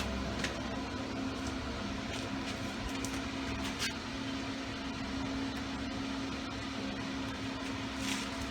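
Steady mechanical hum of a fan-like machine in a small workshop room, with a few faint clicks of metal parts being handled.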